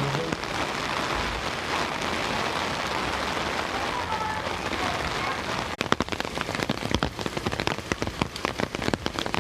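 Heavy thunderstorm rain falling hard in a steady hiss. A little past halfway the sound turns abruptly into loud, close spatters of separate drops striking near the microphone.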